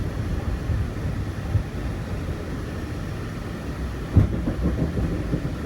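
Monorail train running, a steady low rumble, with a single knock about four seconds in.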